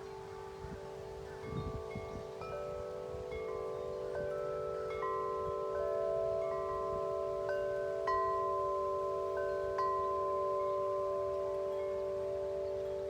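Wind chimes ringing in the wind, their tubes struck again and again so that long, overlapping tones of several pitches hang together. A brief low rumble of wind comes about a second and a half in.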